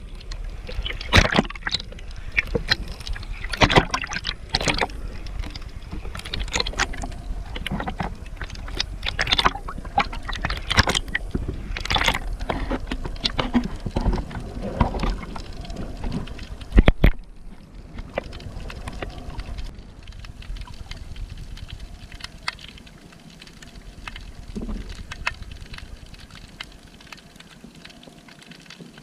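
Boat moving on the sea: a steady low rumble with repeated sharp splashes or knocks, the loudest about seventeen seconds in, after which it goes quieter.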